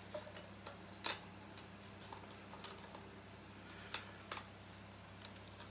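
A few light clicks and taps from small items being handled, the sharpest about a second in, over a faint steady low hum.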